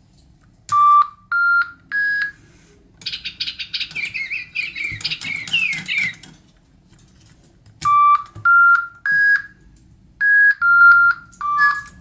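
DigiBirds electronic toy birds sounding: three short beeping notes stepping up in pitch, then about three seconds of synthesized chirping and tweeting. Three more rising notes follow, and near the end three notes stepping down.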